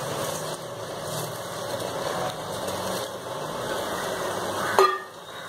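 Soaked rice being tipped from a steel bowl into a pressure cooker of masala and spread by hand, a soft rustle over a steady low hum. A short, sharp sound comes just before the end.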